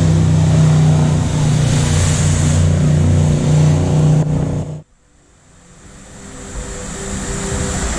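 Tour jet boat's engine running hard as the boat spins across the water, a steady low drone with hissing spray, cut off suddenly a little under five seconds in. After that, a much quieter hiss slowly builds.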